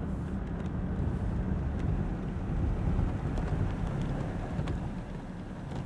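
A car's engine and tyres running in a steady low rumble, heard from inside the cabin while driving.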